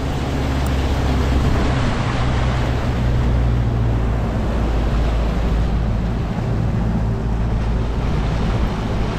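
Skeeter bass boat running fast across a lake: a steady outboard motor drone under rushing water from the wake, with wind on the microphone.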